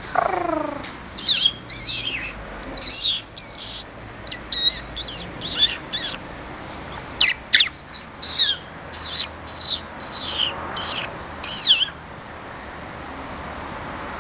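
Monk parakeet giving a rapid series of short, high chirps and squawks, each falling in pitch, about two a second. The calls stop a couple of seconds before the end.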